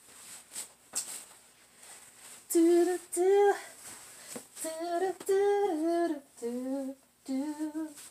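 A woman humming a tune, a run of held notes that slide up and down, starting about two and a half seconds in. Faint rustles and taps come before it.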